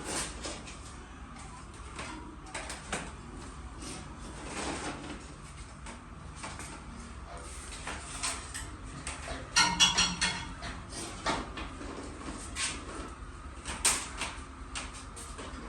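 Intermittent clicks, knocks and clatter of things being handled, with a louder burst of rattling about ten seconds in, over a steady low hum.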